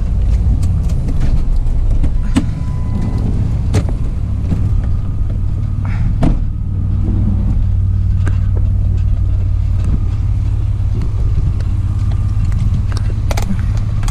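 Van driving along, heard from inside the cabin: a steady low engine and road rumble, with scattered clicks and knocks.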